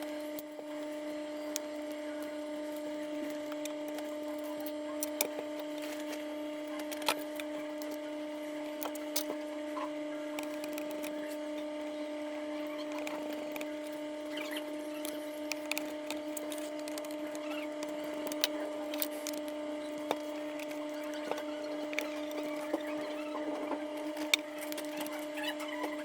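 Scattered small clicks and taps of a smartphone's parts being handled and worked on with small tools during disassembly, over a steady low hum.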